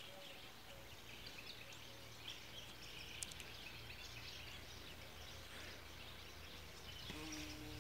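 Faint outdoor ambience with light, scattered bird chirps. A steady low hum comes in near the end.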